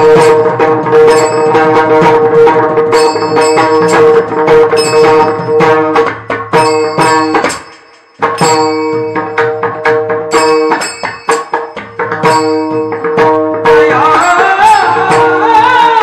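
Kirtan accompaniment: mridang played in a steady rhythm, with short metallic cymbal rings, over a held drone. The music nearly drops out about halfway, then starts again. A singing voice comes in near the end.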